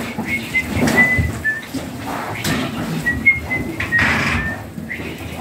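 Fattened pigs grunting and moving about in a concrete pen, irregular low sounds with a few louder moments about a second in and near four seconds. Several short, high, whistle-like chirps at about one pitch come and go over them.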